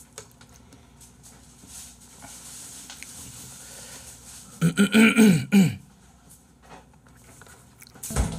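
Low room noise, broken about five seconds in by a man's short wordless vocal sound lasting about a second. A single sharp knock comes near the end.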